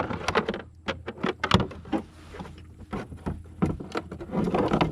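A run of irregular light knocks, clicks and rubbing as a freshly landed redfish is handled on a kayak.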